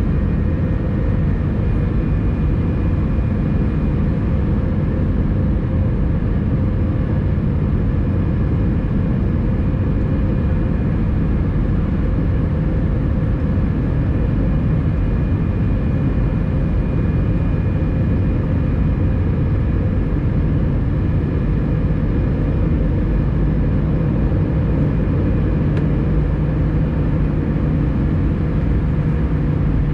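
Steady cabin noise of an Airbus A320-214 during the climb after takeoff: a low roar of its CFM56-5B turbofan engines and airflow, with a few faint steady hums over it.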